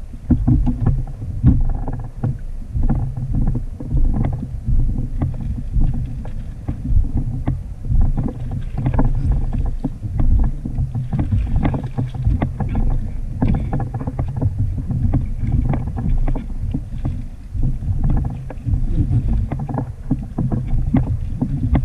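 Wind rumbling on the microphone and water moving around a fishing kayak at sea, with scattered short clicks and knocks from handling gear on the boat.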